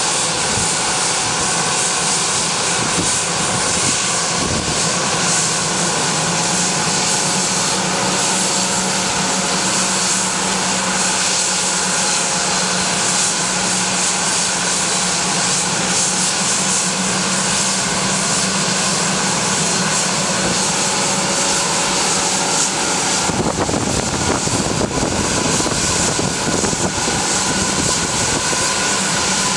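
Bombardier Global Express business jet's two rear-mounted Rolls-Royce BR710 turbofans running at ground idle: a steady whine and hiss with several held tones. About three-quarters of the way through, a deeper rumble comes in as thrust is added and the jet starts to roll forward.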